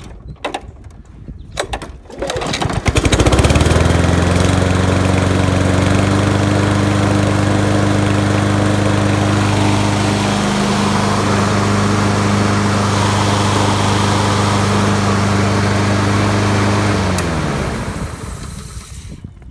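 Honda HRB 215 lawn mower's single-cylinder OHV engine starting after a few clicks, catching about three seconds in and running steadily on its replaced carburetor. Near the end it winds down in pitch and stops.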